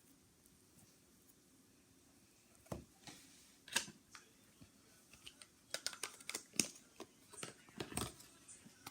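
Slime being handled, making scattered sticky clicks and pops: two or three isolated ones, then a quicker run in the second half.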